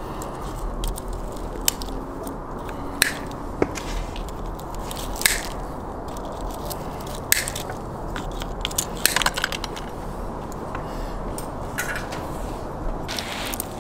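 Pliers snipping and pulling binding wire off a whole roasted lamb: sharp clicks and short scraping rustles every second or two, over steady background noise.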